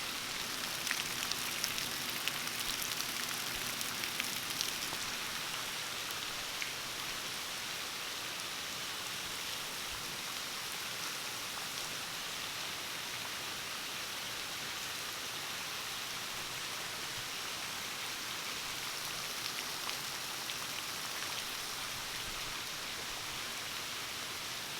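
Heavy rain pouring steadily, a dense even hiss with a few sharper drop taps in the first five seconds.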